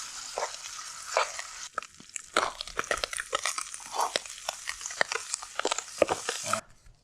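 Food sizzling in a pot on a camp stove for chili, with a utensil stirring and knocking against the pot many times. The sizzle cuts off suddenly near the end.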